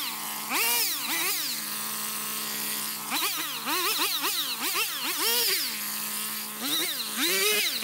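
Electronic background music: a synth lead whose pitch repeatedly swoops up and back down, over a steady held drone.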